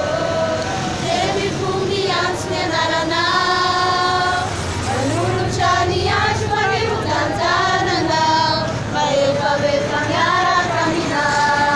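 A group of girls and women singing a song together, several voices holding and bending notes through the whole stretch.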